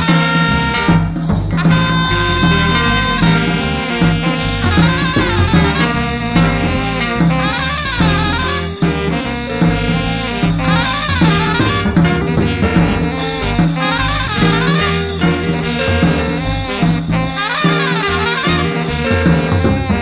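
A band's horns and saxophone playing sustained, wavering lines over drums and a steady bass.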